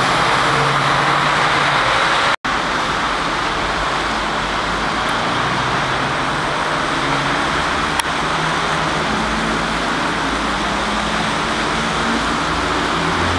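Steady city road traffic: cars and a trolleybus driving past on a snowy street, engines humming under constant tyre noise. The sound cuts out completely for a moment about two and a half seconds in.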